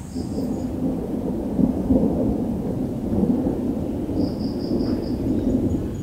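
Thunder rumbling low and continuously, swelling and fading in waves. Two short runs of high chirps sound over it, one at the start and one about four seconds in.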